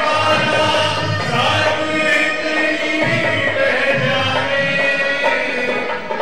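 A man singing a Christian worship song in Urdu into a microphone, with held notes over steady instrumental backing and other voices joining in.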